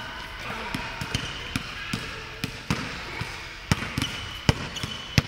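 Basketball bouncing on a wooden court in irregular thumps, the loudest about four and a half seconds in and just before the end, with sneakers squeaking on the floor now and then.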